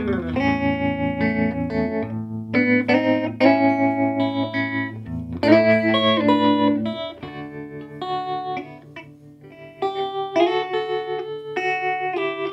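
Electric guitar played through a Davoli D531T valve amplifier with its tremolo on at the slowest speed, so the picked chords swell and fade in volume. The chords quieten and ring out for a moment about two-thirds of the way through before the playing picks up again.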